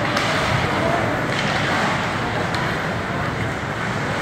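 Ice hockey rink during play: a steady wash of spectators' chatter and skates scraping on the ice, with a few faint sharp knocks.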